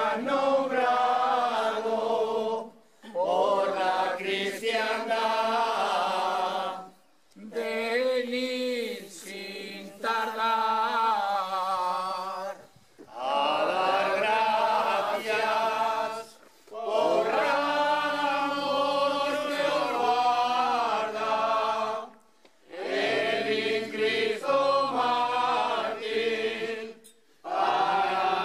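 A group of men singing unaccompanied in long, slow phrases, each broken off by a pause of under a second before the next begins.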